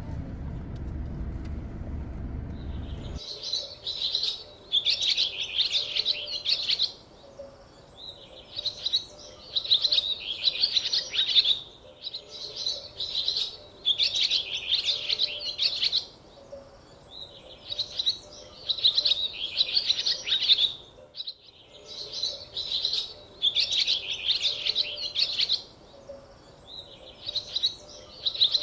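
A low rumble cuts off about three seconds in. Then a bird sings the same chirping phrase over and over, with a short pause between phrases, one every four to five seconds.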